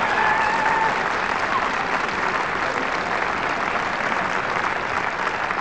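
Audience applause at the end of a musical number, a steady even clatter of many hands that eases off slightly toward the end, with a brief high call over it in the first second.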